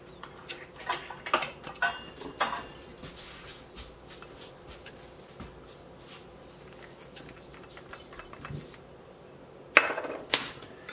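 Clinks and taps of a small stainless steel prep bowl against a glass mixing bowl while garlic is scraped out of it: several light taps in the first couple of seconds, then two sharper clinks near the end.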